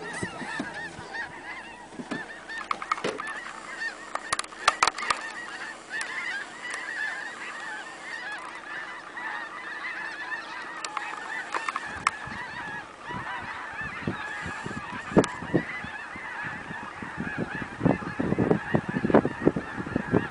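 A large flock of birds calling all at once: a dense, unbroken chorus of overlapping calls. In the last third, many short sharp pops and knocks join in.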